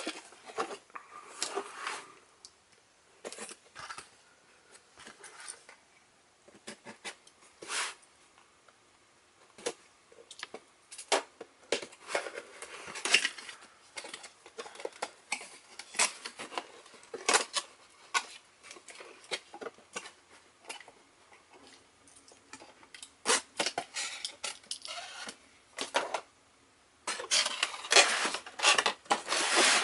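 Cardboard toy box being handled and opened by hand: irregular clicks, taps and scrapes of card flaps and packaging, with a denser run of scraping and rubbing near the end.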